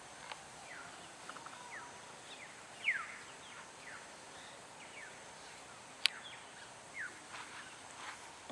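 Birds calling in short, thin chirps that each fall in pitch, scattered irregularly, with one sharp click about six seconds in.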